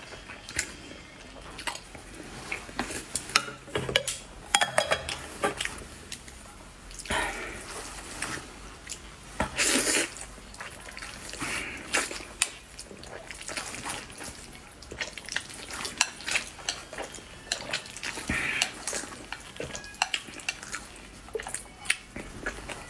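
Close-up eating sounds: chopsticks clicking and scraping on ceramic plates as spicy instant noodles and boiled eggs are picked up and eaten, with mouth sounds of eating between the clicks.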